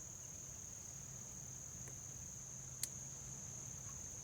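Faint steady high-pitched insect trill running on unbroken, with one sharp click nearly three seconds in.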